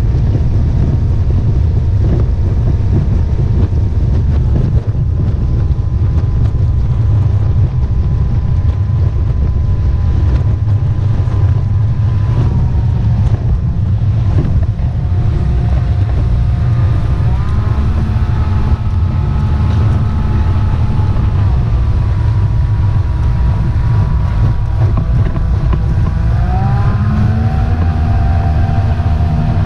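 Mercury 'Tower of Power' outboard with jet drive running underway on an aluminium jon boat, with wind and water rush on the microphone. The engine's pitch falls and rises several times: it drops about twelve seconds in, comes up again a few seconds later, then drops and climbs once more near the end.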